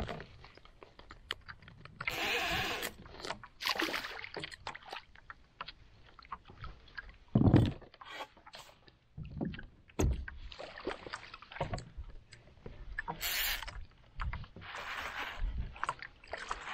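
Water splashing and sloshing against a fishing kayak's hull in irregular bursts, with knocks from gear being handled aboard. A single hard thump about seven and a half seconds in is the loudest sound.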